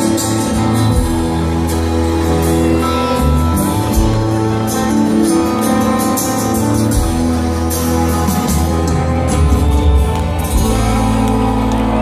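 Live rock band playing loud through a big outdoor PA, recorded from inside the crowd: sustained guitar chords over bass and drums, with the bass settling onto one held note near the end.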